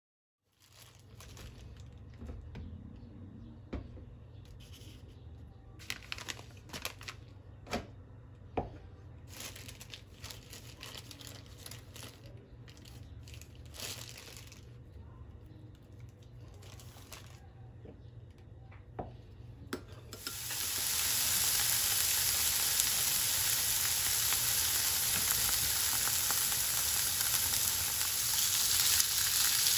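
A spoon clinking and stirring in a glass bowl, with a plastic bag rustling, as a spicy sauce is mixed. About two-thirds of the way through, a loud, steady sizzle starts suddenly as raw pork belly slices go into a hot nonstick frying pan.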